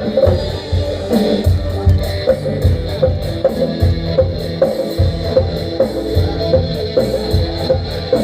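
Live band music led by guitars, with bass and a steady beat.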